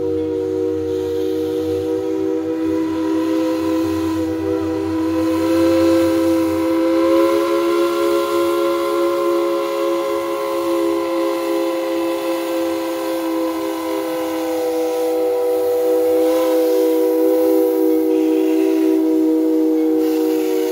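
Steam locomotive's chime whistle sounding one long chord of several tones, with steam hiss above it; the pitch lifts slightly about a third of the way in and sags a little later.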